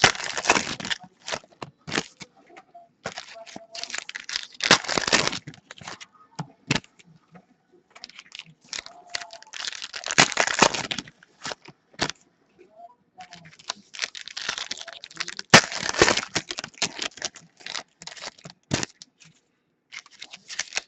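Basketball card pack wrappers being torn open and crinkled, in repeated bursts with quieter gaps between them, and cards being handled.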